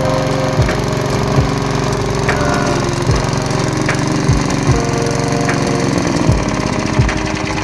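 Briggs & Stratton engine of a 1986 Goldie R-20 lawnmower running steadily, with short knocks at uneven intervals about once a second.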